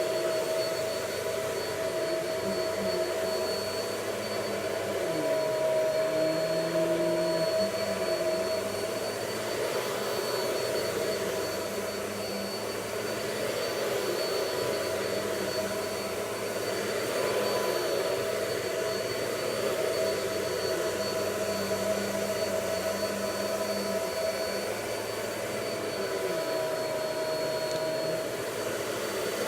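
Vacuum cleaner running continuously, its motor whine holding a steady pitch with slow swells in loudness.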